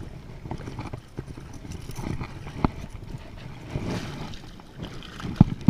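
A hooked redfish thrashing and splashing at the water's surface beside a kayak as it is brought in, with a few scattered sharp knocks, the loudest near the end.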